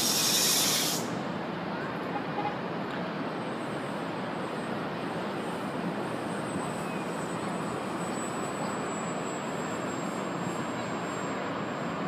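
Steady hum of distant city traffic, with a high hiss that stops about a second in.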